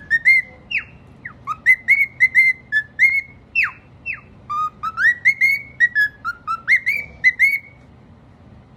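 Cockatiel whistling a song: a quick run of clear whistled notes with rising and falling slurs and a few sharp downward swoops, stopping near the end.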